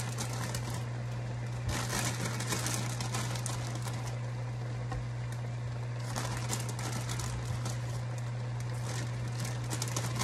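Plastic produce bag crinkling in bursts as broccoli florets are pulled out of it and dropped into a hot wok, over a steady low hum.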